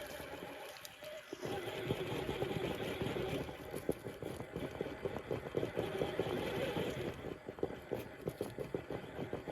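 Redcat Vertex 6 1/6-scale RC rock crawler's electric motor and drivetrain whining as it crawls, starting after a short lull about a second and a half in, with rapid irregular clicking that grows in the second half.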